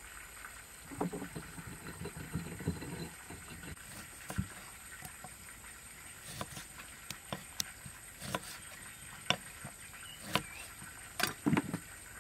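A kitchen knife halving limes on a wooden chopping block: scattered sharp knocks of the blade striking the board, with the loudest cluster near the end.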